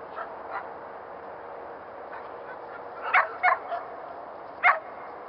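Shetland sheepdog barking: a quick burst of three short, high barks about three seconds in, then one more a second later.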